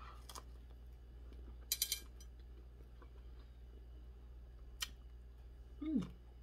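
Quiet mouth sounds of a person eating fried fish with her fingers: a quick run of three smacking clicks about two seconds in, a single click later, and a short hum falling in pitch near the end.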